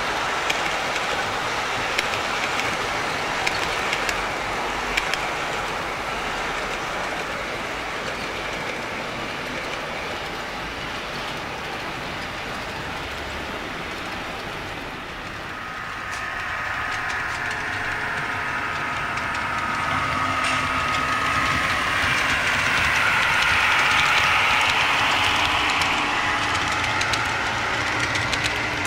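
Model trains running on a layout: a steady rolling noise with scattered clicks, then from about halfway a louder passing train whose whine swells and peaks shortly before the end.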